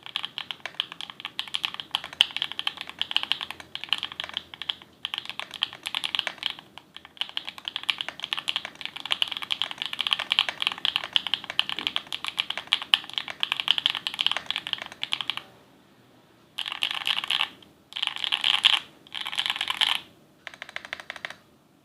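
Typing on a mechanical keyboard with stock HMX Cheese linear switches in an aluminium Tofu60-style case: a fast, steady run of keystrokes with a couple of brief pauses, then after a short break four quick bursts of rapid key presses near the end.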